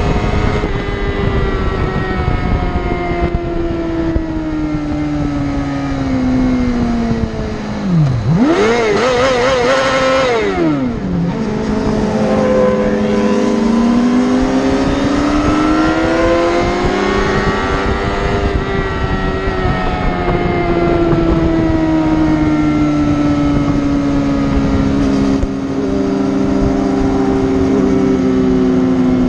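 Sport motorcycle engine at highway speed, its pitch falling and rising with the throttle. About eight seconds in the revs drop sharply, then climb in a quick wavering run of blips before settling, followed by a long rise and a steadier drone, with wind rush underneath.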